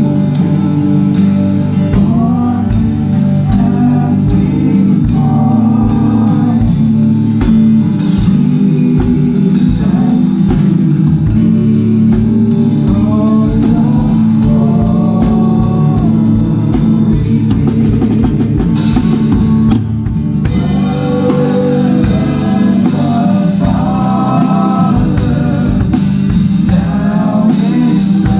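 Worship band playing live: a drum kit keeps a steady kick-drum beat under singing, with the band dropping back briefly about two-thirds of the way through.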